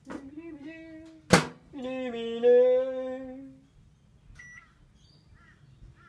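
A person humming wordlessly in two drawn-out phrases, broken by a sharp click just over a second in, followed by a single short high beep.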